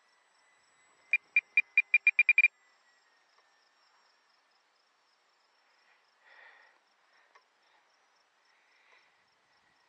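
Radio-control transmitter trim beeps: about ten short, high beeps of one pitch, coming faster and faster over a second and a half as the trim switch is held, trimming the model in flight.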